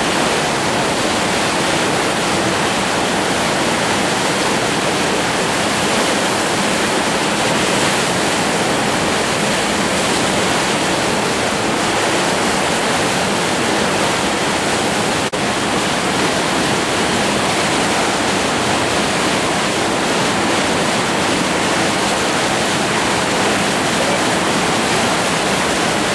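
Whitewater rapids rushing, a loud, steady wash of churning river water.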